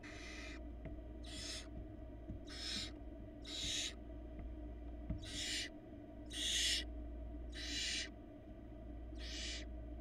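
Barn owl nestlings hissing: a run of about eight rasping hisses, each about half a second long and coming roughly once a second, the begging call that barn owl chicks give.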